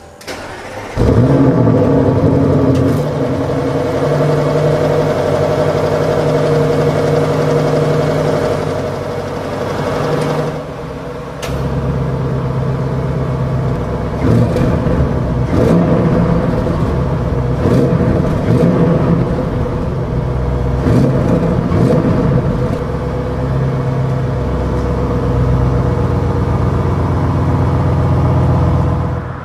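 Audi RS6 Avant's twin-turbo 4.0-litre V8 starting about a second in with a loud flare of revs, then running at a steady, fast idle through the sports exhaust; the idle steps down a little about eleven seconds in.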